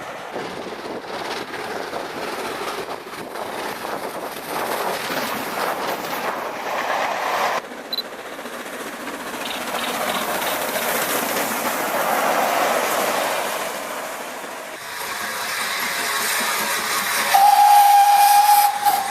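Steam locomotive and train passing with steady hissing noise, then one steady single-note whistle blast lasting about two seconds near the end.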